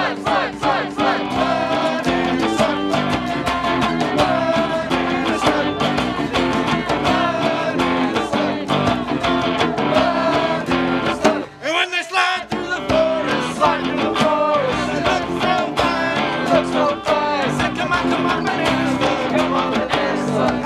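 Voices singing an upbeat song to strummed acoustic and electric guitars. About halfway through the band drops out for a moment, then the song picks up again.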